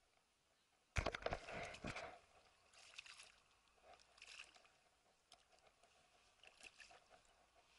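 A hooked small black bass splashing at the water's surface as it is played. There is a burst of splashing about a second in, then several fainter splashes about a second apart.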